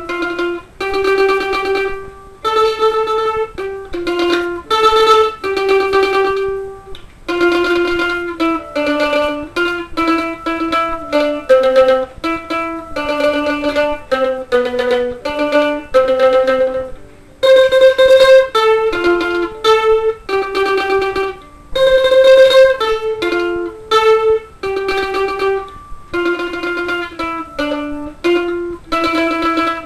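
Instrumental music: a solo plucked string instrument plays a slow melody, each note held by rapid repeated picking.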